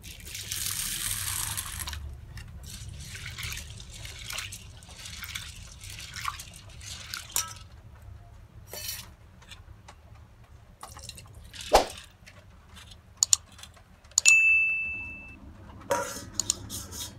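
Water poured from a plastic mug onto split chickpeas (chana dal) in a stainless steel bowl, then the dal swished and rubbed by hand in the water. Later come a few knocks and a clink of steel bowls, one ringing briefly.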